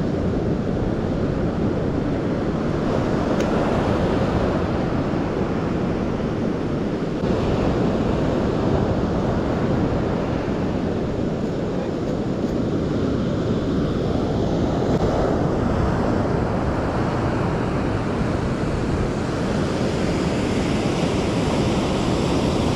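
Surf breaking and washing on a sandy beach, heard as a steady rushing noise, with wind on the microphone.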